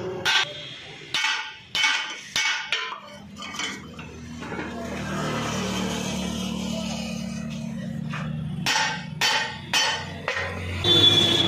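Hammer blows on the steel front axle of a Swaraj tractor, knocking at the kingpin end of the axle. A run of sharp strikes comes in the first three seconds and another about nine to ten seconds in. A steady low hum fills the gap between them.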